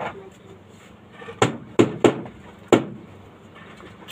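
Hammer blows on the wooden hull of a small boat: four sharp knocks, the first three close together about a second and a half in, the last a moment later.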